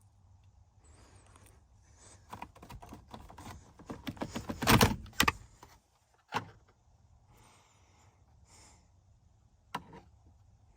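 Metallic rattling and clicking from hand tools and small parts being handled, a busy run of rattles a couple of seconds in, then two single sharp clicks.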